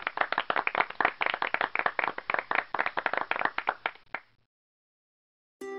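Applause sound effect: many hands clapping in a dense patter, marking the correct answer. It stops abruptly about four seconds in, and music starts just before the end.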